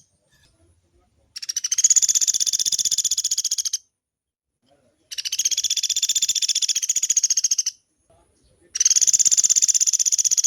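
Common flameback woodpecker (pelatuk beras) giving long, rapid rattling trills, three in a row, each about two and a half seconds long with short pauses between.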